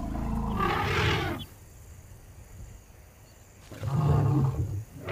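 Lions growling and snarling at a charging elephant: a harsh snarl in the first second and a half, then a deeper growl about four seconds in.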